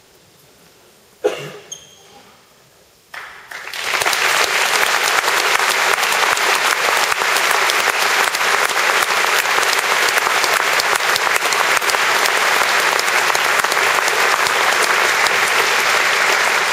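Large audience applauding, starting about three seconds in, swelling quickly and then steady and loud. A single sharp knock sounds about a second in, before the clapping.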